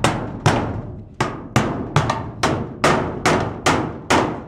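Hammer striking the steel wall framing of a portable office container: about ten sharp metal blows at two to three a second, each ringing briefly, knocking bent sheet metal back to close a gap in the wall.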